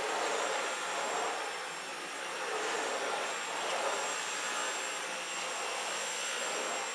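Dyson V11 cordless stick vacuum running steadily: a rush of air with a thin, steady high whine from the motor, its level swelling and easing gently.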